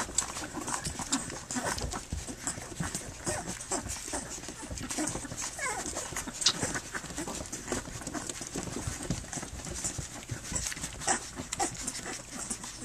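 Three-week-old Standard Schnauzer puppies nursing from their standing mother: a busy run of wet suckling clicks and smacks with small grunts, and a short squeak about halfway through.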